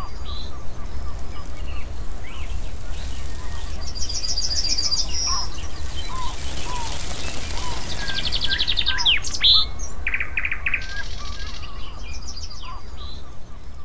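Songbirds chirping and calling, with several short rapid trills and brief whistled notes, over a steady background hiss and low rumble.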